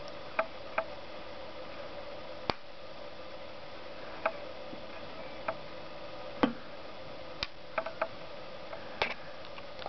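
Irregular light clicks and taps from handling an Illinois Autocrat pocket watch, its case knocked by fingers and laid on a wooden board, some clicks in quick pairs, over a steady background hum.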